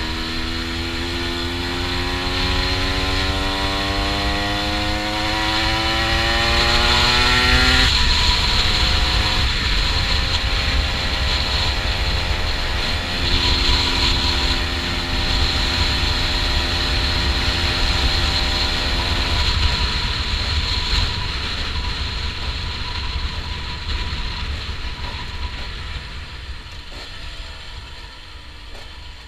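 Honda NSR125 single-cylinder two-stroke engine pulling hard with its note rising for about eight seconds. It then drops to a lower, steadier pitch while cruising, and fades as the throttle eases near the end. Wind rush on the mounted camera runs underneath.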